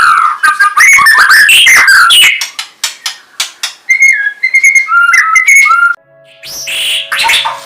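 Songbird singing loudly: a fast, varied run of whistled phrases and trills, then shorter chirped notes with gaps. The song cuts off about six seconds in, and music with steady held notes starts near the end.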